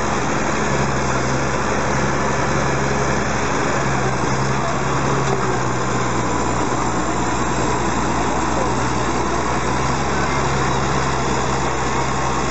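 Diesel engines of a Zetor 16145 and a Fendt tractor running hard under load as the two pull against each other on a chain, a loud, steady sound with no clear revving up or down.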